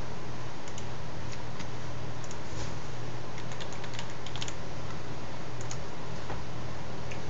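Computer keyboard keys tapped in short runs as a password is typed, most keystrokes in the first four or five seconds and a few more near the end, over a steady hiss and low hum.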